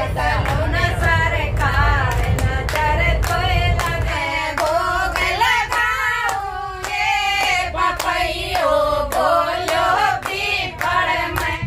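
Several voices singing a devotional bhajan together, with steady hand clapping in time. A low rumble runs underneath for the first few seconds.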